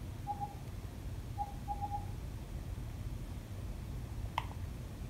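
Soft, short pitched ticks of the Apple TV menu navigation sound, played through the TV, as focus moves in the Apple Music menu: one just after the start, then a quick run of three or four a little after a second. A single sharp click comes a little after four seconds, over a low steady hum.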